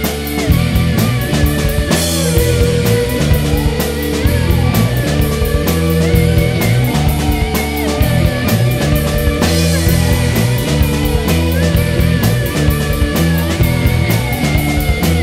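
Rock music with a steady drum beat and guitar.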